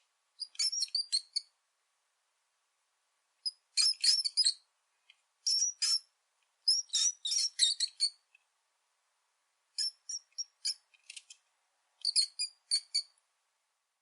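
Rat squeaking: clusters of short, high-pitched squeaks, several in quick succession, repeated about six times with gaps of a second or so between.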